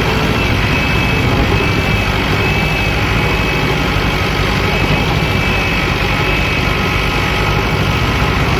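Small farm tractor's diesel engine running steadily under load with an even low throb, hauling a loaded trolley through deep mud.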